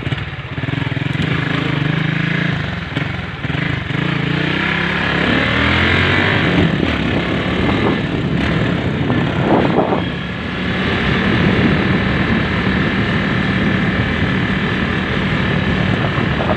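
Honda Sonic motorcycle engine running under way, its pitch climbing and dropping as it speeds up and shifts gears.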